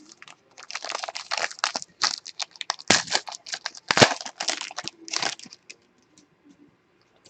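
Foil wrapper of a trading card pack being torn open and crinkled while the cards are pulled out, with two sharp snaps about three and four seconds in. The rustling stops about five and a half seconds in.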